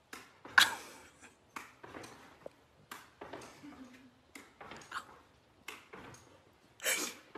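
Irregular thumps and scuffs of dogs' paws landing and scrabbling on a wooden floor and rug as they leap and play, the loudest about half a second in and again near the end.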